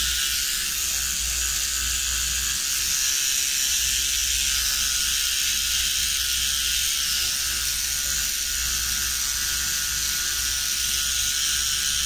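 Small cordless pen-style pet trimmer running with a steady high buzz while it trims the hair on a Yorkshire terrier's ear.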